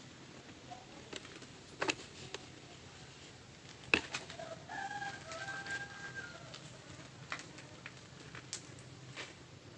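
A bird calls once, a held call of about two seconds in the middle, over a steady low hum, with a few sharp clicks, the loudest about four seconds in.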